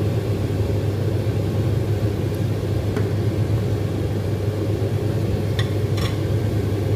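Pot of soup at a hard rolling boil on the stove, a loud steady low rumble, with a few light clinks of the ladle against the pan near the end.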